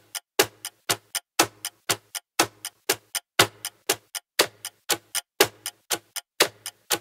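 Countdown timer sound effect: clock-like ticking at about four ticks a second, a louder tick every half second, counting down the seconds left to answer.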